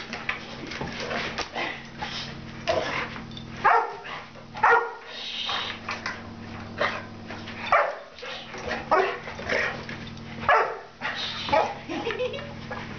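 Puppy barking and yipping in play: a string of short barks, roughly one a second, over a steady low hum.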